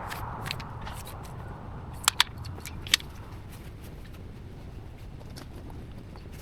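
Pruning shears snipping branches: a few sharp clicks, the loudest two in quick succession about two seconds in and another a second later, over a low steady rumble.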